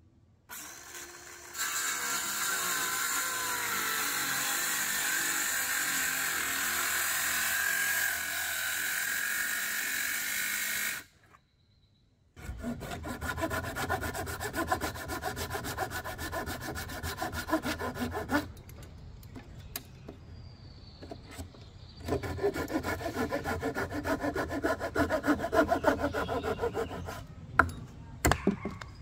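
Ryobi cordless circular saw spinning up and cutting through a 2x6 for about ten seconds, then stopping. After a pause, a handsaw cutting the wood with rapid back-and-forth strokes, in two runs of several seconds each, finishing the cut the circular saw could not complete.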